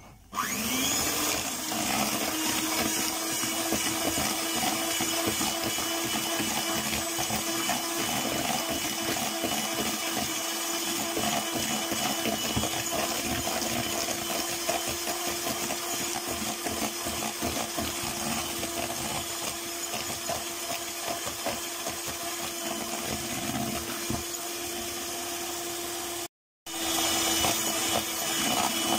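Electric hand mixer beating eggs with sugar in a plastic bowl: the motor spins up just after the start, then runs steadily at one speed, whipping the eggs into a thick foam. The sound cuts out for a moment near the end and comes straight back.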